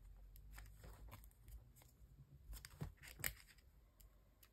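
Faint rustling and a scatter of small clicks of plastic: a photocard in its plastic sleeve being handled and worked into a clear binder pocket, the sharpest click a little past three seconds in.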